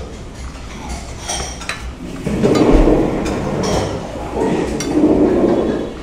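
Dishes and cutlery clinking, with two louder swells of noise, each about a second and a half long, starting about two seconds in and again near the end.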